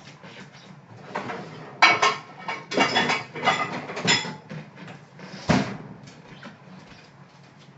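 Dishes and cutlery clattering and clinking in a run of knocks lasting about five seconds, ending with one sharp knock.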